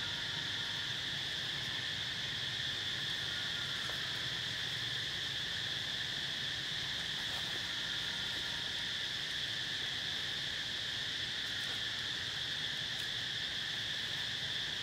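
A steady, high-pitched insect chorus droning without a break.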